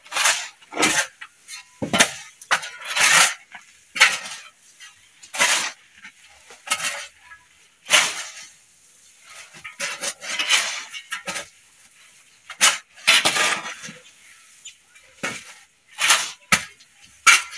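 Metal shovel blade scraping and scooping into a heap of gritty soil-and-compost nursery substrate, then tossing it, stroke after stroke at about one a second in an uneven rhythm.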